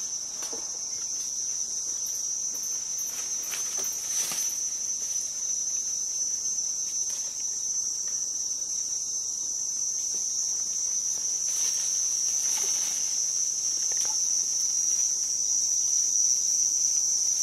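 Chorus of insects chirring: a steady, unbroken, high-pitched buzz that grows a little louder toward the end, with a few faint rustles or taps.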